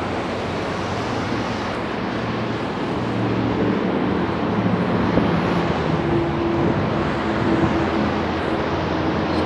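Steady road traffic noise of passing cars, with an engine hum growing a little louder about three seconds in.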